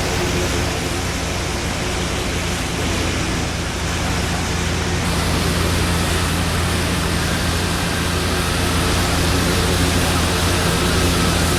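Strong wind buffeting the microphone with heavy rain, an even rushing noise that grows slightly louder toward the end, over a steady low hum.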